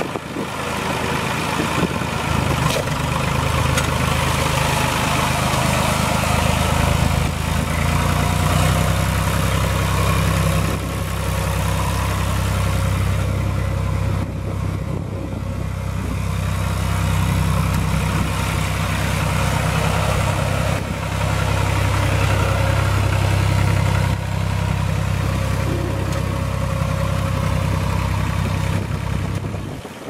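Massey Ferguson 245 tractor's Perkins three-cylinder diesel engine running steadily as the tractor is driven around, its engine note stepping up a little a few seconds in and again about eight seconds in.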